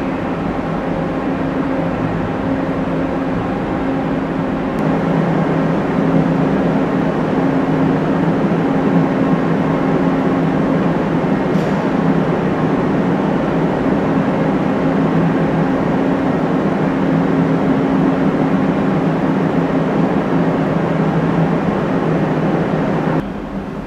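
Heavy engines of amphibious assault vehicles running steadily, a loud constant drone with a hum of several steady tones, growing a little louder about five seconds in.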